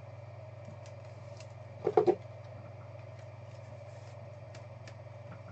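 A steady low hum, with faint scattered ticks and one short vocal sound from a man about two seconds in.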